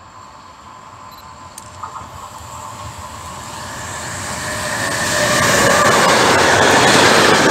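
Freight train hauled by an ÖBB class 1293 Siemens Vectron electric locomotive approaching and passing close by: the rolling noise of wheels on rails grows from faint to loud and is loudest from about five seconds in, as the locomotive and its wagons go past.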